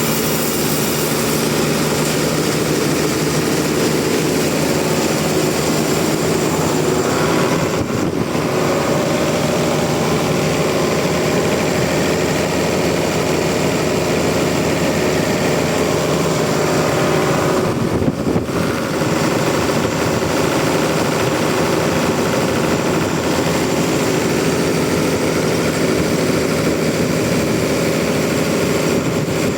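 Sawmill machinery running: a loud, steady engine drone that dips briefly twice, about eight and eighteen seconds in.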